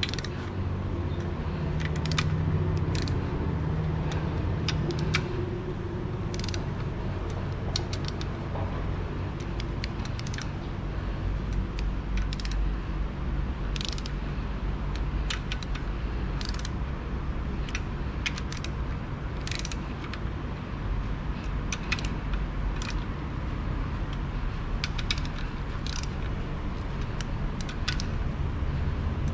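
Hand tools working on an engine under rebuild: a ratchet wrench and metal tools make irregular clicks and clinks as a part is turned clockwise by hand, with a steady low hum underneath.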